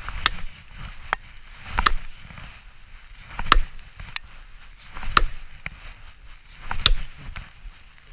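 Chopping blows into wood: five heavy strikes about a second and a half apart, with lighter knocks in between.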